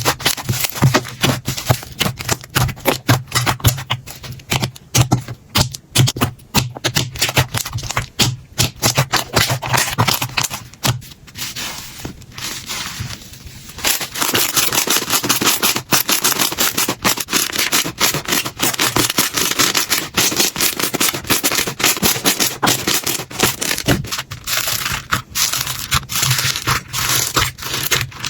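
Slime being squeezed, stretched and poked by hand, a dense run of sticky clicks and crackles. About halfway through, the crackle becomes denser and hissier.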